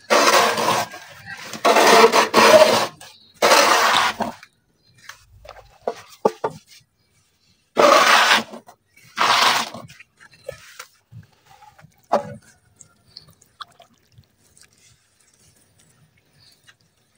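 Chunks of red dirt crumbling and breaking up: five gritty crunching bursts of about a second each in the first ten seconds, then a few faint crackles.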